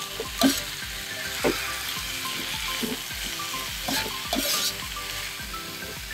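Mixed vegetables sizzling in a hot wok while being stir-fried, with a spatula scraping and knocking against the metal pan about five times, loudest about half a second in.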